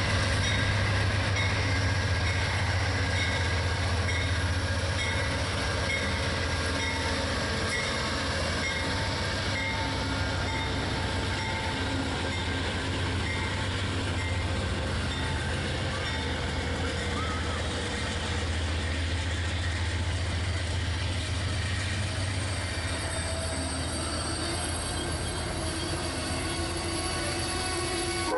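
Amtrak passenger train led by a GE P42DC diesel locomotive passing close by: a steady low diesel engine drone under the noise of the wheels rolling over the rails.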